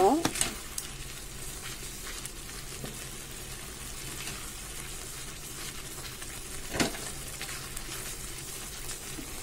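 Grated coconut and sugar syrup bubbling and sizzling in a metal kadai while a wooden spatula stirs it, with one louder knock about seven seconds in. The mixture is thickening and coming away from the pan, nearly at burfi consistency.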